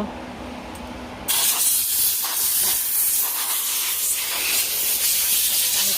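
A loud, steady hiss that starts abruptly about a second in, after a quieter stretch with a faint hum.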